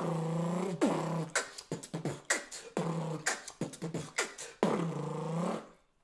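Beatboxed imitation of a motor vehicle: a buzzing, engine-like drone made with the mouth, held in stretches of about a second and broken up by quick clicks and pops. It stops shortly before the end.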